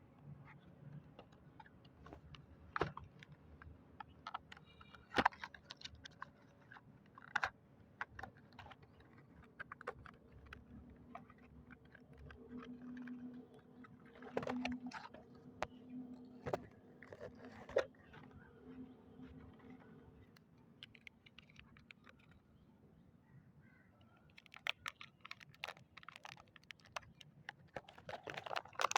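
Hands handling small objects and packaging: scattered clicks, taps and light crinkles, coming thicker in the last few seconds, with a faint low hum in the middle.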